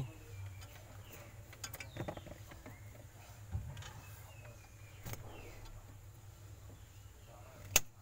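Faint rustling and scattered small clicks of fridge wiring and plastic connectors being handled and pulled apart, over a faint low hum, with one sharp click near the end.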